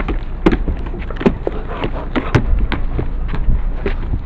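Irregular knocks and thuds of footsteps on wooden deck boards over a steady low rumble on the microphone.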